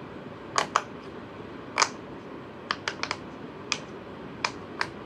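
Silicone pop-it fidget toy bubbles being pressed one after another: about ten short, sharp pops at uneven spacing.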